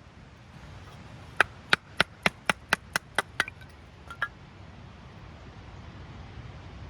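About eight sharp knocks in quick succession, roughly four a second, then two fainter ones a little later, over a steady low rush of background noise.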